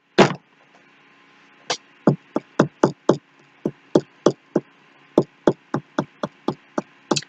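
A tarot deck being shuffled and tapped in the hands: a run of short, sharp taps, about three a second, beginning about a second and a half in.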